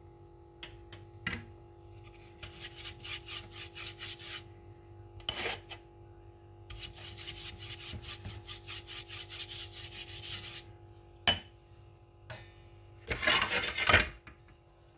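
Pastry brush scrubbing melted butter across a frying pan in quick back-and-forth strokes, about four a second, in two runs. A few sharp knocks come between them and a louder clatter near the end, over a steady hum.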